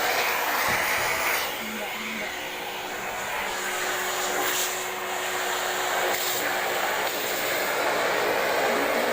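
Sharp EC-8305 vacuum cleaner running with a steady rushing motor noise that dips slightly in level about one and a half seconds in.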